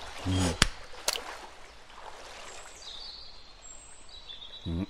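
Outdoor nature ambience of flowing water with faint bird chirps. It is broken by a short grunt near the start and another near the end, and by two sharp clicks about a second in.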